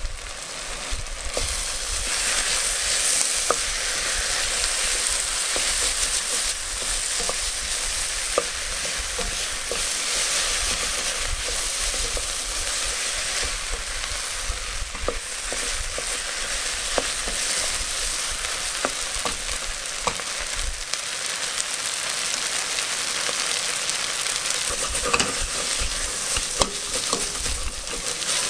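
Chopped onions frying in sunflower oil in a stainless steel pot over high heat: a steady sizzle that builds up over the first couple of seconds and then holds, with occasional light clicks. The onions are at the softening stage of frying.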